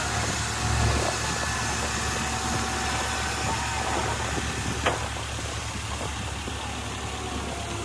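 Heavy diesel engine of earthmoving machinery running steadily with a low rumble, with one short knock about five seconds in.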